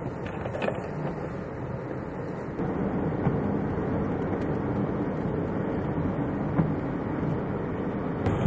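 Steady road and wind noise heard from inside a moving car, with no distinct events; it becomes louder about two and a half seconds in.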